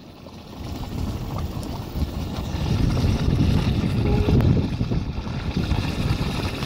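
Wind buffeting the microphone, a gusty low rumble that builds over the first couple of seconds.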